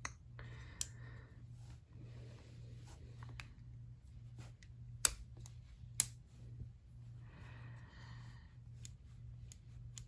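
Leatherman Skeletool RX multitool being handled, its locking blade worked open and shut one-handed: quiet rubbing and sliding, with two sharp metal clicks about a second apart near the middle. A faint steady hum runs underneath.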